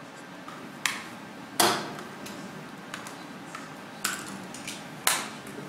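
A handful of sharp knocks and clicks at irregular intervals, four of them louder than the rest, the loudest about a second and a half in, each trailing off briefly.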